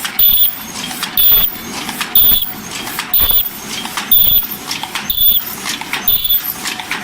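Open-cam paper cup making machine with ultrasonic heater running, forming 12 oz cups. A rhythmic mechanical clatter repeats about once a second, each cycle with a loud beat and a short high tone over a continuous machine noise.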